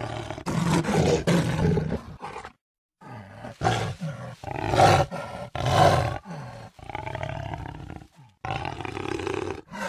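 Jaguar roaring and growling in a run of separate rough, hoarse calls, the loudest about a second in and again around five and six seconds. The calls are broken by two short dead silences.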